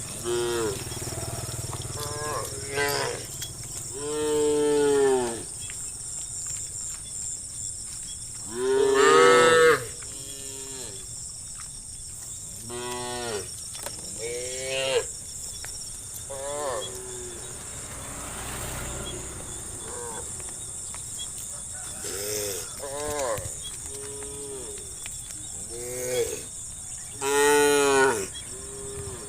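Cattle mooing again and again, about a dozen calls from the herd, some short and some long and drawn out, each rising then falling in pitch, over a steady high insect buzz.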